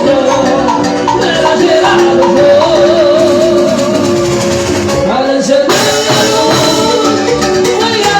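Instrumental passage of a tropical Latin dance song, with shaker percussion under a melody line that wavers with vibrato in the middle. About six seconds in, the band comes in fuller and brighter.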